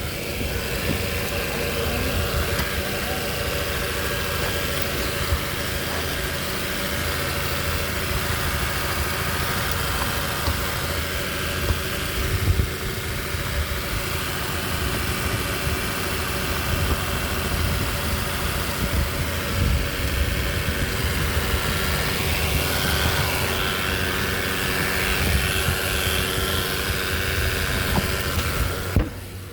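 2018 Chevrolet Equinox's 1.5-litre turbocharged four-cylinder engine idling steadily, heard from underneath the car, with a few steady tones held over the engine sound. The sound drops away abruptly just before the end.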